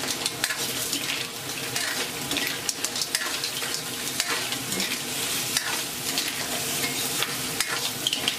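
Mussels in their shells being stir-fried in a hot wok with a metal spatula: a steady sizzle of oil under frequent scrapes and clicks of the spatula and shells against the pan.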